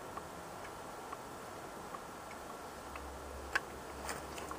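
Faint scattered clicks about a second apart, then a sharper knock about three and a half seconds in, as a chainsaw is handled and readied for a cold start. A low hum comes in about three seconds in.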